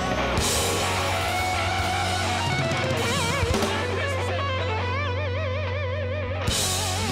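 Rock band playing the ending of a song: an electric guitar plays a lead line with wide vibrato over a held bass note and drum kit. A cymbal crash about six and a half seconds in closes it.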